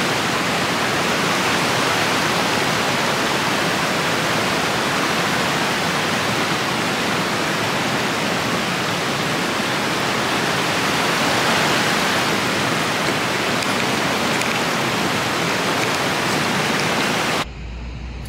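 Steady loud rushing water, an even hiss-like roar with no rhythm. It cuts off abruptly near the end, giving way to a quieter low hum.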